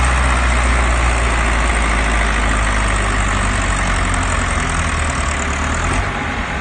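John Deere 2510's four-cylinder engine running hard under heavy load, pulling a weight-transfer sled. It runs loud and steady throughout.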